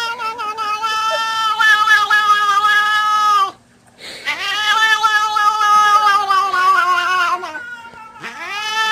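Cat yowling in long, drawn-out howls, three of them. One runs to about three and a half seconds in, a second lasts from about four seconds to seven and a half, and a third starts near the end. Each call sags a little in pitch as it ends.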